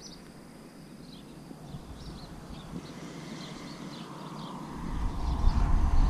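Scattered short bird calls over quiet open-air ambience. About five seconds in, a low steady rumble starts and grows louder: the bass boat's outboard motor idling as the boat pulls away from the dock.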